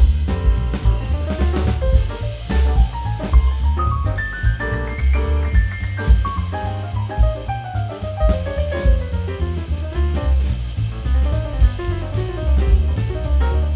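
Background music with a drum-kit beat and pitched melody lines.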